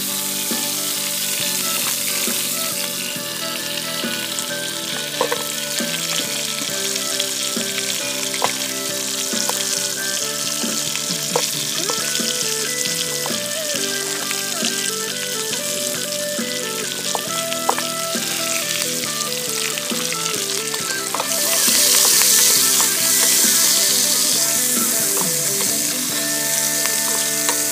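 Food sizzling as it fries in garlic butter, a steady hiss that grows louder about two-thirds of the way through. An instrumental stretch of a background song plays underneath.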